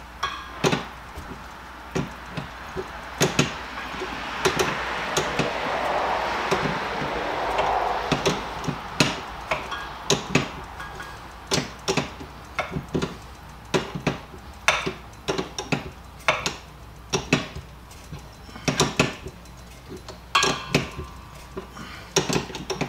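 A brass air-hose fitting being tightened with a wrench: irregular metallic clicks and clinks of the tool working on the fitting. A soft rushing noise comes in about four seconds in and fades a few seconds later.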